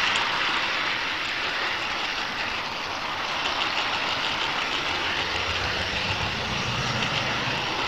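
HO-scale model train running along the track: a steady whirring rush of the motor and wheels on the rails, heard close up from on board.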